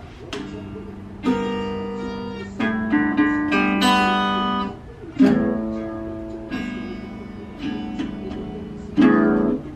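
Acoustic guitar played in slow strummed chords, each left to ring and fade before the next, about nine strums with several chord changes.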